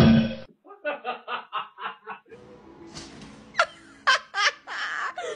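Human laughter, a quick run of about six 'ha' beats at about four a second, right after a short loud hit at the very start. After that comes a noisier stretch with a few sharp short sounds.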